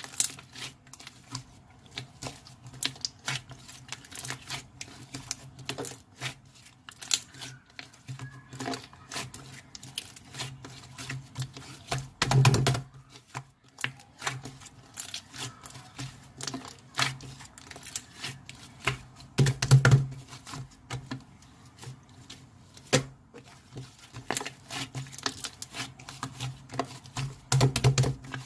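Slime being pressed and squeezed by hand, giving a dense run of sharp clicks and small air-bubble pops, with three heavier squelches about seven seconds apart.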